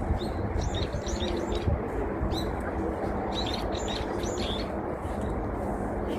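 Small birds chirping in quick clusters of short, high notes, repeating every second or so, over a steady low hum of background noise.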